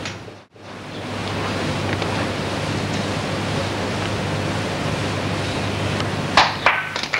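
Steady hiss with a low hum from an old videotape recording, briefly dropping out about half a second in. A few sharp claps come near the end as applause begins.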